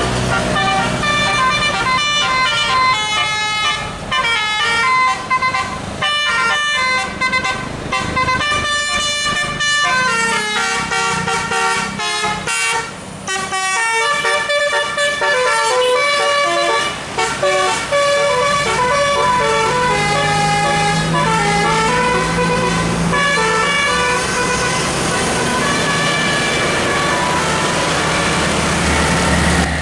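A bus's telolet musical air horn plays a quick melody of short stepped notes, tune after tune, over the bus engine running.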